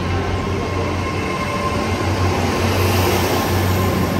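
Great Western Railway Intercity Express Train at the platform, its underfloor diesel engines running with a steady low drone and a faint steady whine above it.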